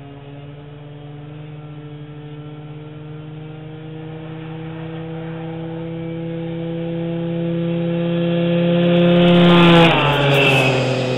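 Small motor scooter engine approaching at a steady high pitch, getting steadily louder, then dropping in pitch as it passes close by just under ten seconds in.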